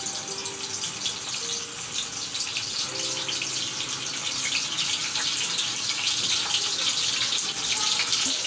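Peeled hard-boiled eggs frying in hot oil in a nonstick pan: the oil sizzles steadily with many small crackles and spits, getting a little louder near the end.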